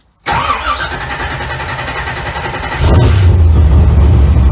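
Car engine starting: a lighter sound for the first couple of seconds, then from about three seconds in it runs loud with a deep, steady rumble.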